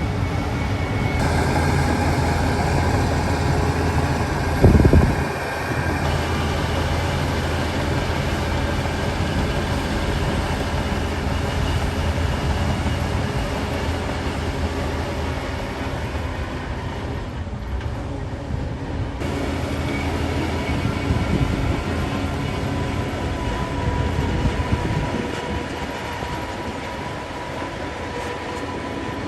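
Shantui DH17 crawler bulldozer's diesel engine running steadily, with one loud bang about five seconds in.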